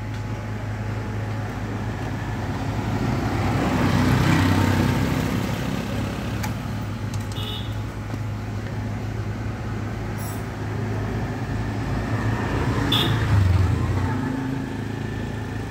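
Road traffic passing nearby, two vehicles each swelling up and fading away over a few seconds, over a steady low hum. A few light clicks in between as a motorcycle drive chain is handled.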